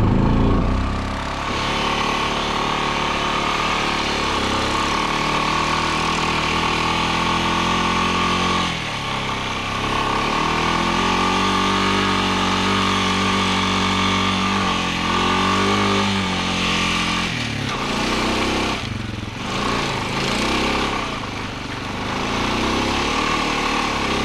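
Honda Foreman 500 ATV's single-cylinder engine running under load as the quad rides through a couple of inches of snow. The engine speed rises and falls as the rider works the throttle, easing off briefly about nine seconds in and again a few seconds before the end.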